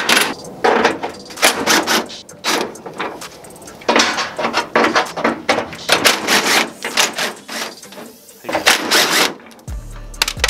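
Cordless impact driver run in repeated short bursts, hammering as it backs out the bolts holding a truck's grille.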